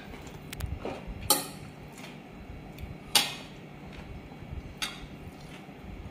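Metal fork clinking against a ceramic dinner plate: a handful of short, sharp clinks, the loudest about a second in and again about three seconds in.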